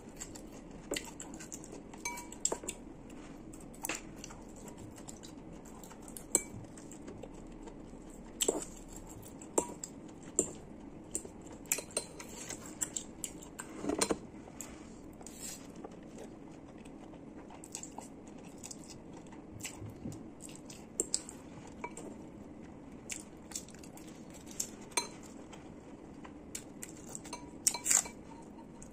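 Metal fork clinking and scraping against a ceramic noodle bowl in irregular sharp clicks, with some chewing, over a steady low hum.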